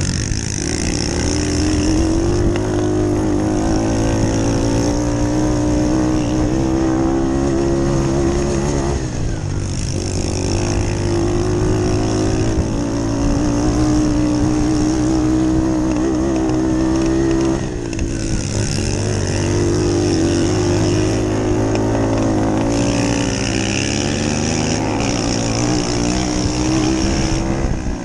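Onboard sound of a small moped-class dirt bike engine run hard on a dirt track, its note rising and falling with the throttle. It drops away briefly about a third of the way in and again just past halfway, then climbs back.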